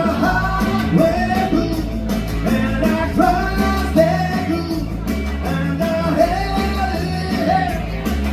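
Live band playing a rock and roll number, a sung melody over bass, guitar and drums.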